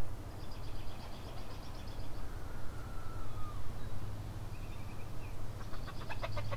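Backyard birds calling: a rapid chattering series of high notes in the first two seconds, a thin falling whistle and a short call in the middle, then chickens clucking in a quick louder run near the end. A low steady hum runs underneath.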